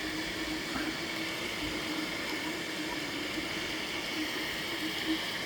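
Anycubic 3D printer running mid-print: a steady fan whir under a humming motor tone that wavers in level.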